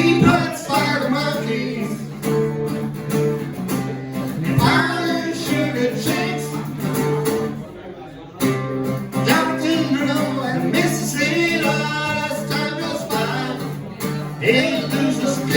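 A rock band plays the close of a song with guitars and singing, ending on a final hit near the end.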